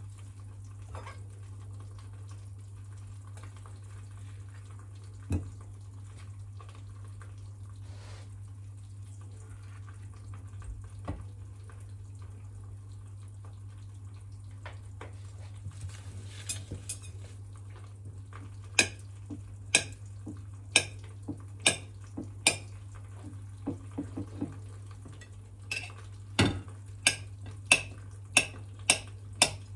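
A table knife cutting avocado on a ceramic plate. Each stroke gives a sharp click of the blade against the plate, in a regular run that starts about two-thirds of the way in, at about one a second and quicker near the end. Under it are quieter scrapes and the faint steady sound of eggs frying in a pan.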